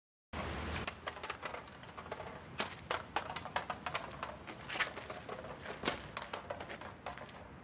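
Footsteps on wet pavement, a rapid irregular series of sharp taps, over a steady low street rumble. The sound cuts in suddenly about a third of a second in.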